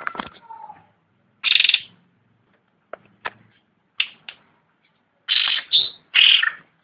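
Cucak rante songbird calling: short, rough call notes with a few sharp single chips between them, ending in a run of three loud notes near the end.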